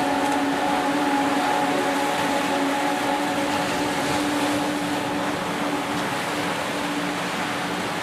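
Small waves breaking and washing up a sandy beach, a steady hiss of surf. Soft background music holds long, sustained notes over it.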